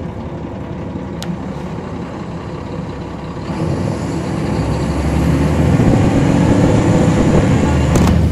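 A NABI transit bus's Caterpillar C13 ACERT inline-six diesel running low, then building up louder and fuller about three and a half seconds in as the bus accelerates.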